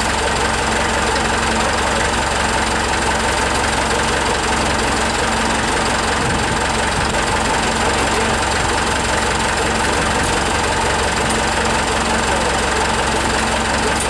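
Forklift engine idling steadily, an even engine noise that holds the same speed throughout.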